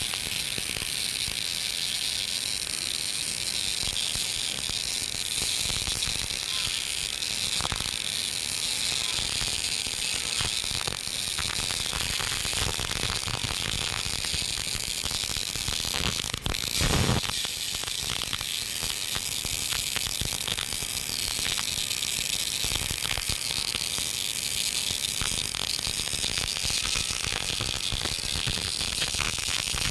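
GMAW (MIG) welding arc laying an open-root pass uphill, set at about 105 A and 15.7 V: a steady, crackling sizzle typical of short-circuit transfer. There is a brief louder burst a little past halfway.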